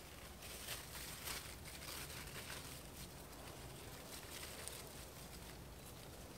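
Leaves and stems of trellised garden plants rustling and crackling as hands work through the foliage, busiest in the first half.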